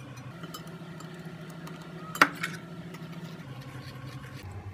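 Blended grape juice poured from a steel container through a stainless-steel mesh strainer into a steel bowl, a soft even pouring sound over a steady low hum. About two seconds in, one sharp metallic clink rings out.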